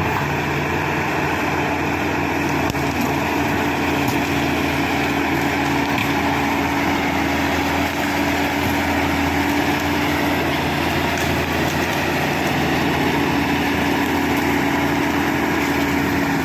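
Shantui SD16 bulldozer's diesel engine running at a steady speed, with an even hum and a higher steady tone, cutting off near the end.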